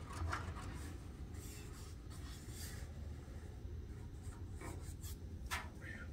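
Sharpie marker scratching faintly on the painted steel bed floor, marking bolt holes through a seat bracket, with a light tap near the end.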